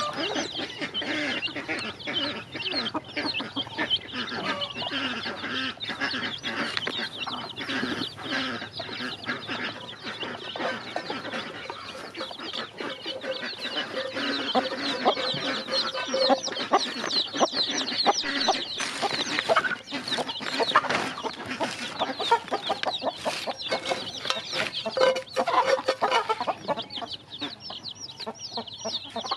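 A flock of young chicks peeping constantly, many high, short chirps overlapping, with frequent light taps among them.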